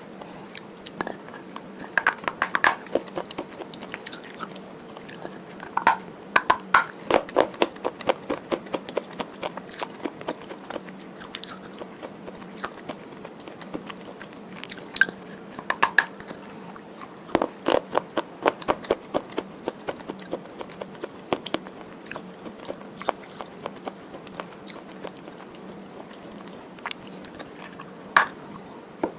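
Close-up eating: crunchy bites and fast chewing come in bursts of sharp crackles, with quieter gaps between them.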